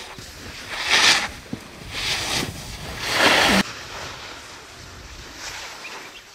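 Snowboard edges scraping through slushy spring snow on each turn: three loud swooshes about a second apart, the last cut off abruptly, then quieter, steadier scraping.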